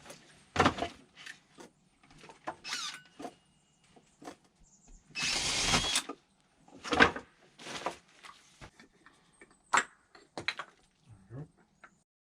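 Scattered knocks and clicks from handling tools and parts, with a brief scraping rustle about five seconds in.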